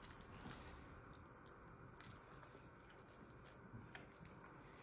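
Near silence with a few faint clicks: quiet chewing of a soft caramel cake bar.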